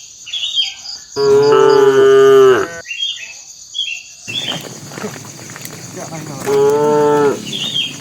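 Cattle mooing twice: a long, loud moo about a second in, and a shorter one near the end.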